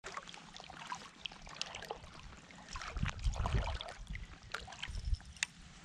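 Water lapping and trickling against a float tube, with scattered light clicks and a few low bumps near the middle.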